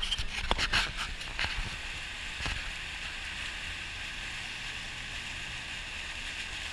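A vehicle driving through deep floodwater: a steady rushing hiss of water washing and sloshing around the wheels and body. A few sharp clicks and knocks come in the first second and a half.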